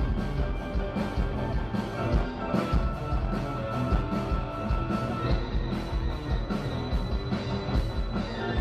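Music with a steady drum beat and sustained instrumental tones.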